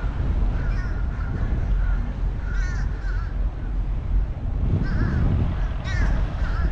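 Birds giving short calls again and again at uneven intervals, over a steady low rumble.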